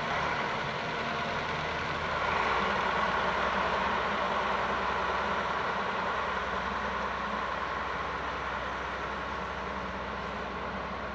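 Diesel engines of a farm tractor towing a forage wagon and a Stalowa Wola Ł-34 wheel loader running, a steady drone that swells about two seconds in and then slowly fades.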